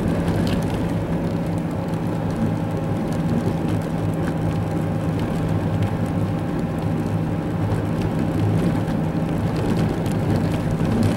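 Steady car cabin noise while driving slowly on a snowy road: a low engine hum with tyre and road noise, heard from the dashboard.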